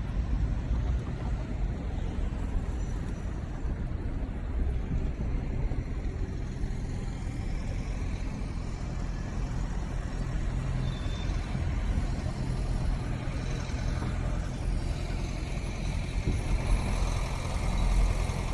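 Steady city street traffic noise: a continuous low rumble of passing cars with no single event standing out.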